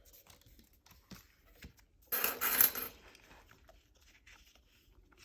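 Disc-bound planner being handled: a couple of small clicks, then a short burst of clicking and clinking about two seconds in as pages and the metal binding discs are worked.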